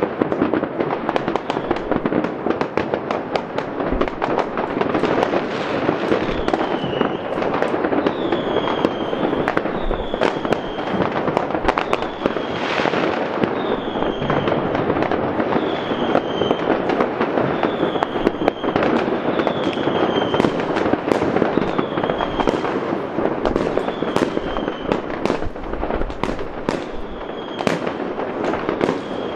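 Many fireworks and firecrackers going off together: a dense, continuous crackle pierced by sharp bangs. From about six seconds in, a short falling whistle recurs every second or two.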